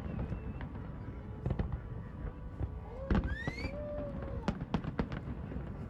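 Aerial fireworks bursting: a run of sharp bangs and crackles over a low rumble. The loudest bang comes about three seconds in, with a short rising whistle just after it.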